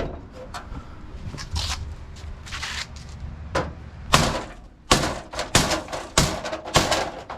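Mallet blows on the steel flange of a Jeep CJ5 windshield frame, bending it flush: a few scattered knocks, then a quick run of about eight hard strikes from about four seconds in.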